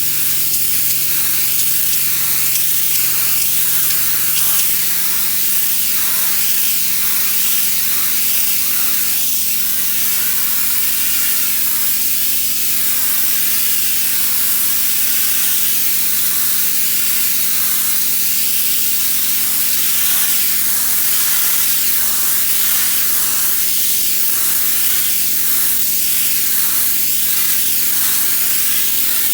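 Pressure washer jet spraying steadily, a loud continuous hiss of high-pressure water, with a steady low hum from the machine underneath.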